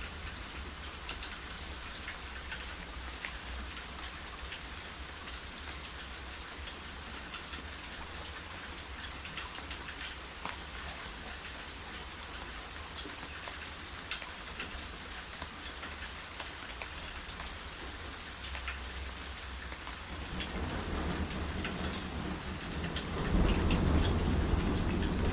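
Steady rain hissing, with scattered drops ticking on a surface. Over the last few seconds a low rumble of thunder builds and grows louder.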